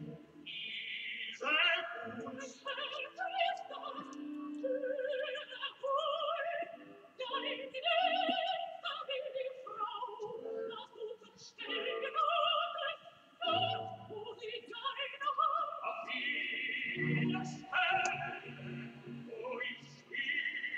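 Music with operatic singing.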